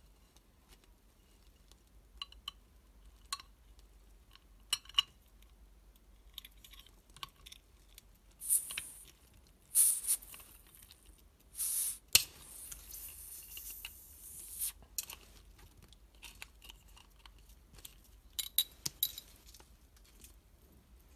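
A stainless steel axe-pendant bottle opener and its chain clink against a beer bottle's crown cap in light metallic clicks. Short hisses come as the cap is levered, then the cap comes off with a sharp click and a steady hiss of escaping gas lasting about two seconds. A few more clinks follow near the end.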